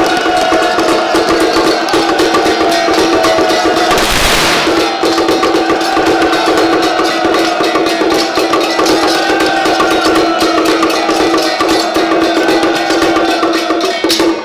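Traditional Taiwanese temple percussion accompanying a Song Jiang Zhen staff bout: fast, continuous drumming over a steady ringing gong tone, with a short noisy crash about four seconds in.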